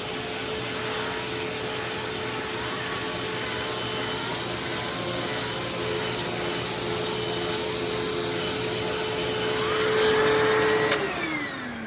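Upright vacuum cleaner running steadily with a turbo brush on its hose. Near the end it is switched off and the motor winds down, its pitch falling.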